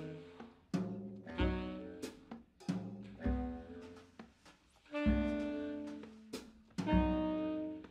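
Large jazz orchestra of saxophones, brass, strings, double bass and drums playing a series of short accented chords at irregular intervals. Each chord is struck together with a drum hit and left to fade, and one chord about five seconds in rings out longest.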